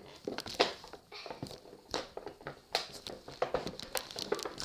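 A cardboard doll box with a clear plastic window being handled and turned over: a run of crackles, taps and scrapes.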